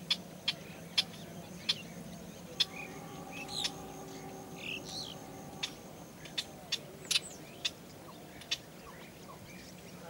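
Wetland ambience: birds calling, with about a dozen short, sharp clicks at irregular intervals and a few chirps. A faint steady hum runs through the middle few seconds.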